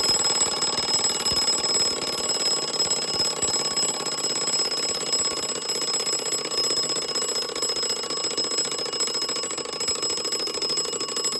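Alarm of an American time-and-strike mechanical clock ringing: the hammer rattles rapidly and without a break against the bell. The alarm spring was wound more than needed, so it rings on.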